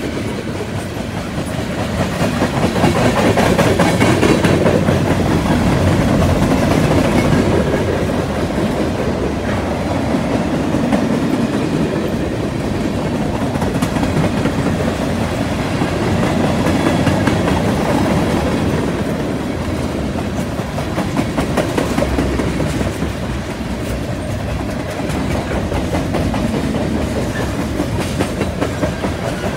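Freight train cars (tank cars, covered hoppers and boxcars) rolling past: a steady rumble of steel wheels on rail with a constant clickety-clack over the rail joints.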